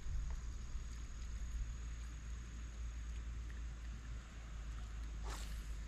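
Low wind rumble on the microphone with a thin, steady insect whine that stops about halfway through, and a single short swish near the end.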